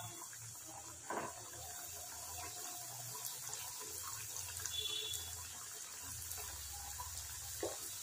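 Breaded chicken fingers deep-frying in hot oil in a kadai, the oil bubbling and sizzling steadily, with a brief knock about a second in.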